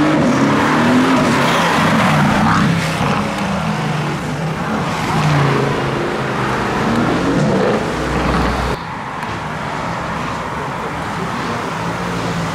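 Mercedes-AMG V8 engines revving hard as the cars accelerate away, the engine note rising in pitch several times. About two-thirds of the way through the sound drops abruptly to a quieter engine note.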